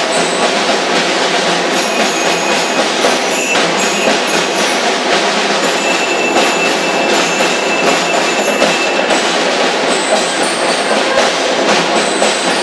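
Massed marching snare drums of a drum corps playing a continuous, dense cadence, a rapid rattle of stick strokes.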